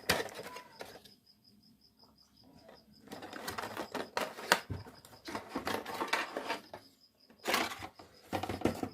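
Plastic and metal clicks and rattles of an AMD stock CPU cooler being handled and fitted onto the motherboard's processor socket, coming in bursts with a quiet gap of about two seconds near the start.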